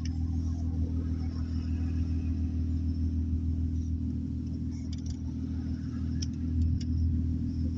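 Car interior noise heard from inside the cabin while driving slowly: a steady low engine and road rumble, with a few faint ticks about five to six seconds in.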